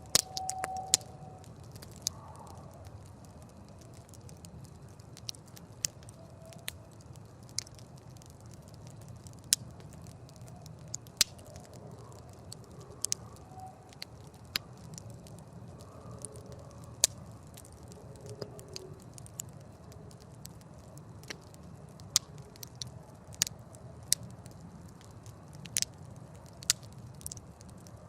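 Wood campfire crackling, with irregular sharp pops and snaps over a low, steady rumble of the burning fire.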